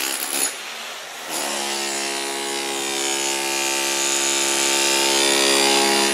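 An electric power tool comes up to speed about a second in and runs on with a steady, even-pitched whine.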